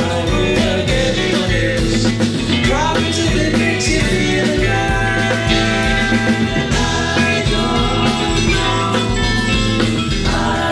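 Live band playing a song: drum kit and bass guitar keep a steady beat under guitar and other melodic instruments.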